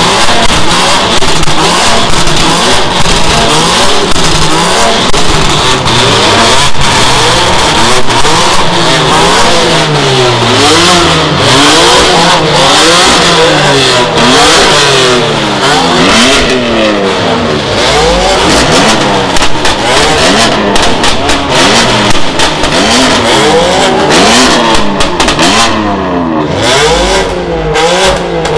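Modified car engine revved hard again and again, its pitch rising and falling every second or two, with sharp exhaust pops and crackles that come thickest near the end.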